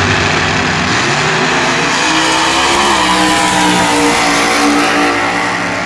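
Street Outlaw drag race car launching and making a full-throttle pass down the strip. The engine's pitch rises for about three seconds, then steps down about three seconds in as it shifts gear, and the car keeps pulling hard.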